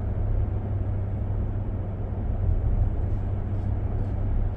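Steady low rumble of a 2025 Ram 1500 Limited being driven, heard inside the cab: road and drivetrain noise, even and unchanging.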